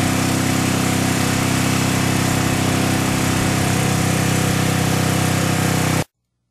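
Briggs & Stratton portable generator engine running steadily at constant speed, heard through an open garage door, its exhaust passing through an added car muffler. It stops abruptly about six seconds in.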